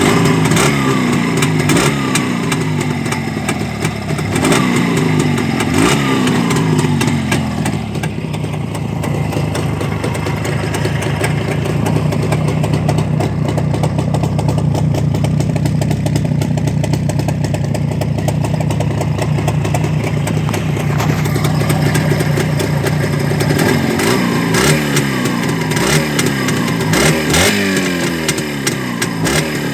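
A ČZ motorcycle's two-stroke engine, running after a repair, is blipped repeatedly, each rev falling back. It then holds a steady speed for about fifteen seconds before being blipped again several times near the end.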